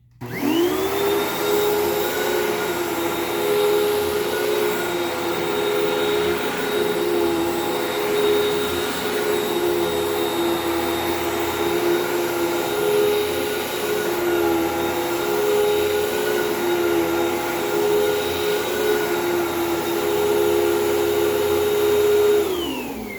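Hoover WindTunnel vacuum cleaner switched on, its motor spinning up quickly to a steady loud whine. It runs without change, then is switched off near the end and winds down in falling pitch.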